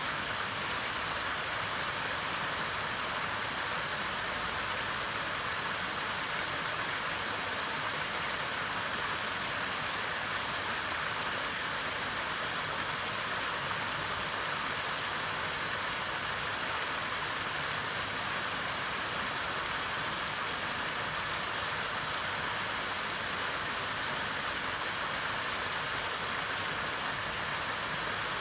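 Waterfall rushing: a steady, even hiss of falling water that holds at one level throughout.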